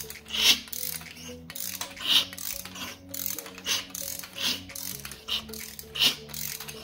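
A freshly rebuilt Mazda 13B rotary engine being turned over by hand, with repeated mechanical clicking strokes about one every three-quarters of a second, like a ratchet wrench working the shaft. The builder takes the sound as healthy.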